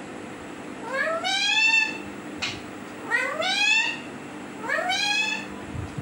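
Alexandrine parakeet giving three meow-like calls, each rising in pitch and then holding for under a second, about two seconds apart.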